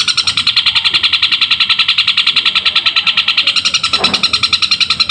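Long-tailed shrike (cendet) singing a fast, unbroken chatter of evenly repeated high notes, about eleven a second, in its imitation of a tree sparrow's call.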